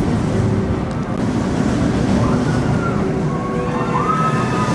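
MACK Rides launch coaster train running on its steel track: a steady rumble of wheels on the rails, with a wavering whine over it in the second half.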